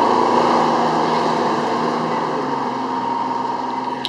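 Fire engine's diesel engine running close by: a steady drone with a low hum that eases off slightly over a few seconds.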